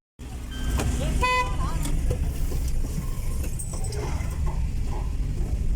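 Street traffic: a steady low rumble of vehicle engines, with a short car horn toot a little over a second in and voices in the background.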